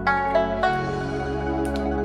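Calm background music: plucked string notes over steady low sustained tones.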